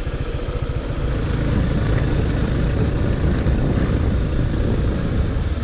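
Motorcycle engine running as the bike is ridden, a fast low pulsing that grows louder about a second in as the throttle opens.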